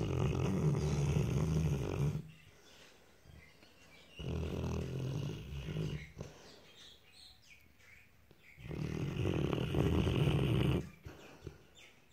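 Large dog snoring in its sleep: three long snores, each about two seconds, coming roughly every four to five seconds.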